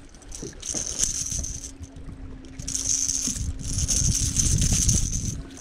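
A motor on a bass boat humming steadily, with bursts of hiss and light rattles of gear on the deck.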